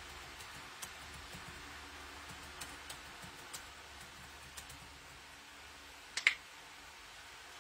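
Scattered light clicks of a computer keyboard and mouse being used, with a louder, sharp double click about six seconds in, over faint room hiss.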